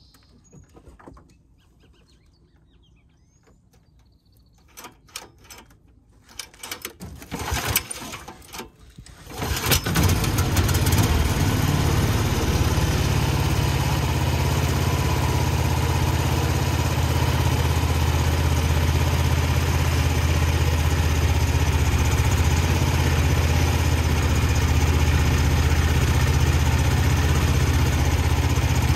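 Predator 420cc single-cylinder engine on a Mudskipper mud motor being started: a few short bursts as it turns over, then it catches about ten seconds in and runs steadily under load.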